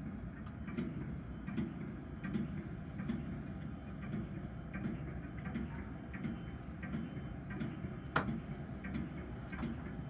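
A steady, even ticking, about four soft beats every three seconds with lighter clicks in between, and one sharp, louder click a little after eight seconds in.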